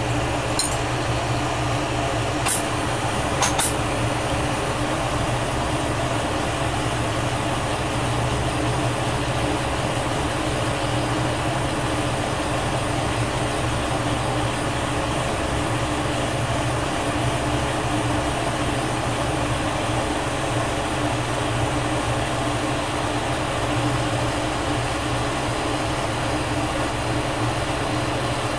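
Glassblowing torch burning with a steady hiss while a glass tube is heated in its flame, with a few light clicks in the first few seconds.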